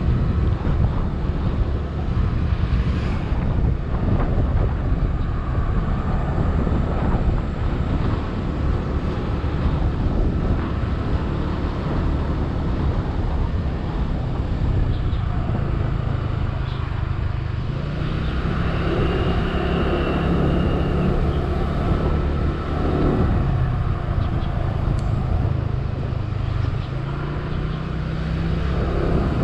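Motor scooter running while riding along a road, its engine note mixed with steady wind rush on the action-camera microphone. The engine pitch rises a little about two-thirds of the way through.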